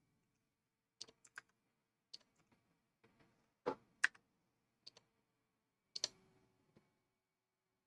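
Scattered single clicks from computer input, about eight of them irregularly spaced, with quiet between; the loudest come a little before four seconds in and at about six seconds in.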